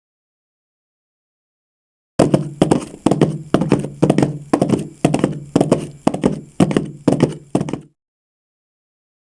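Foley horse hooves: knocks in a clip-clop rhythm, about two a second, starting about two seconds in and stopping near eight seconds.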